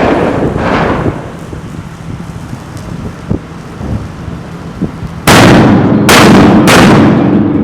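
Three loud firework bangs in quick succession about five seconds in, each echoing off the surroundings. A short rushing noise comes at the start.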